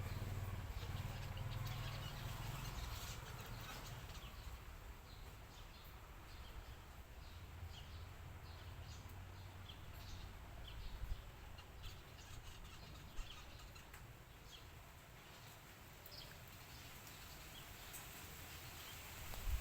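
Birds chirping: many short, scattered calls over a low rumble that fades after the first few seconds. A few sharp clicks come near the middle and just before the end.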